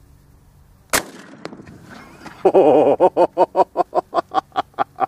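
A single 12-gauge shotgun shot about a second in, firing a 1-ounce Winchester Foster deer slug. From about two and a half seconds a loud drawn-out pitched sound follows, then a run of quick pitched pulses, about five a second, that fade away.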